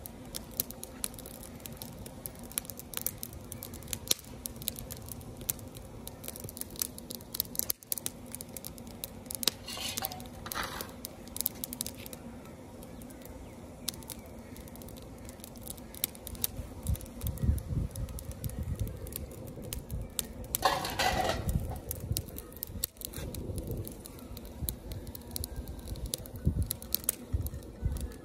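A dry-twig wood fire crackling under a cooking pot, with many scattered sharp snaps and clicks as twigs burn and are handled. There are two brief rustling bursts and some low rumbles about two-thirds of the way in.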